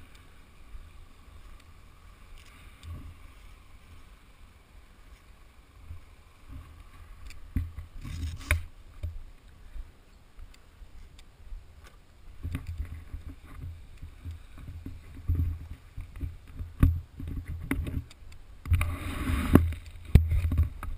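Wind buffeting the camera's microphone in uneven gusts, with rustles and knocks as the camera is handled and moved about, loudest about 8 seconds in and again near the end. No engine is running.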